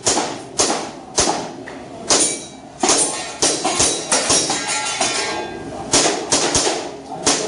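Airsoft gas pistol firing a rapid string of about a dozen shots in uneven groups, each a sharp crack with a short metallic rattle, with a pause of about a second near the middle.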